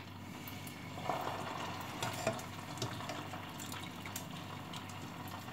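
Freshly boiled pelmeni, still wet from the broth, sizzling in hot oil in a frying pan as they are added, with a few light clicks of the utensil against the pan.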